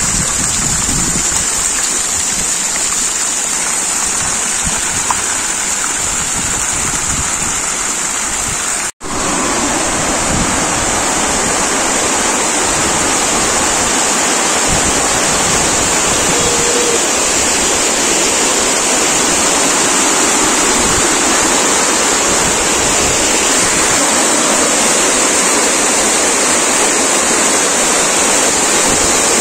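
Steady rush of splashing water from illuminated garden fountain jets. After a brief break about nine seconds in, it gives way to a fuller, steady rush of water pouring down a cascade wall.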